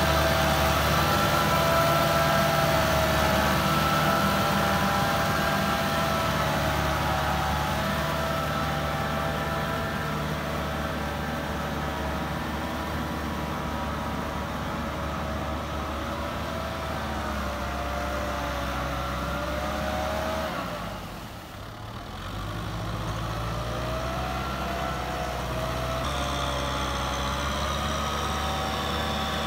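Small farm tractor's diesel engine running steadily under load, with a wavering whine over the engine note. The sound dips briefly about two-thirds of the way in, then picks up again.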